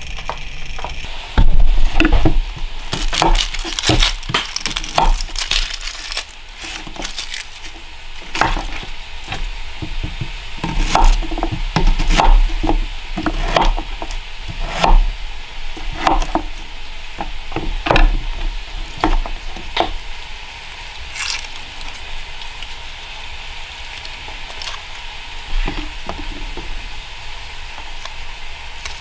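Pork fat sizzling in a cast iron pan on a wood stove, with frequent sharp pops and crackles. The loudest pops come about a second and a half in, and the popping thins out over the last third.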